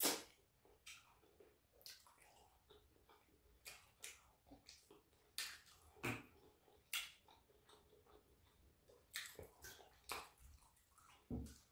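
Close-miked eating sounds: wet lip smacks and chewing of soft fish and starch eaten by hand, a scatter of sharp smacking clicks with the loudest right at the start.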